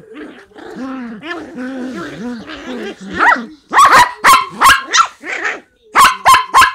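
Small dogs play-fighting: low growling for the first few seconds, then a quick run of sharp, loud barks from about halfway in, a short pause, and three more barks near the end.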